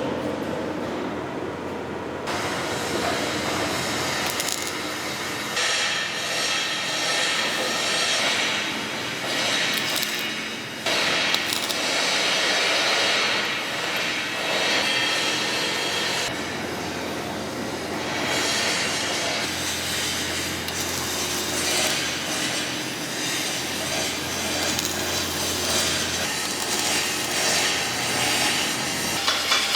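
Semi-automatic (MIG) welding arc crackling and hissing in several runs of a few seconds each, stopping and starting again between welds.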